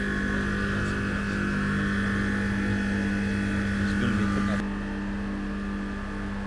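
Car hoist's electric lift motor running steadily under load, a constant hum with a higher whine over it. About four and a half seconds in, the whine drops away and the hum carries on a little quieter.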